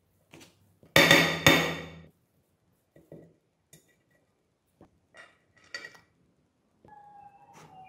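Two sharp knocks about half a second apart, each ringing on briefly, as parts are fitted into a metal engine side cover; then light clicks and taps of small metal parts being set in place, and steady ringing tones near the end.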